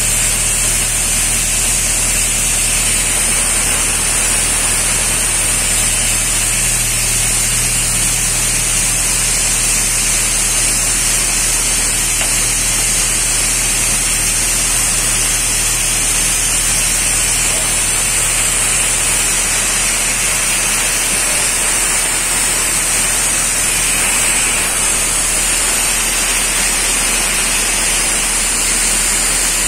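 Paint-spraying rig hissing steadily, a high unbroken hiss, with a steady low hum of its motor underneath.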